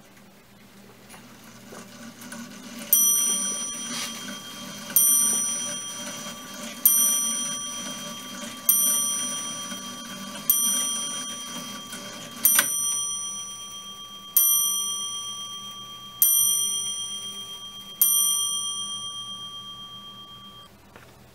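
Antique French automaton mantel clock striking the hour on its bell: nine strikes about two seconds apart, each left ringing and dying away. A low whirring of the clock's running mechanism lies under the first six strikes and stops about twelve seconds in.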